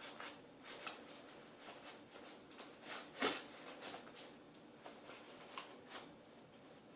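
A cardboard shipping box being cut and opened with a knife: irregular scraping, scratching and rustling of cardboard and packing tape, with the loudest scrape a little after three seconds in.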